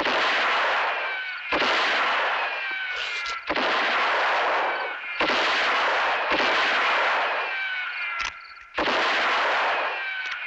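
Six revolver shots, one to two seconds apart, each with a long echoing tail and a falling ricochet whine, as in a western film's gunfight sound effects.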